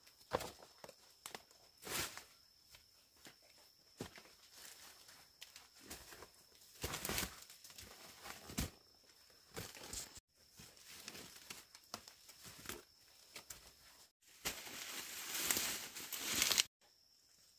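Rustling, crackling and tearing of leaves and plant stalks being handled, with scattered snaps and clicks and a faint steady high tone. A louder stretch of rustling comes near the end, and the sound cuts off abruptly a few times.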